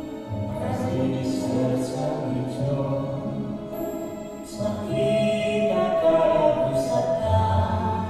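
A song playing: singing voices holding long notes over music.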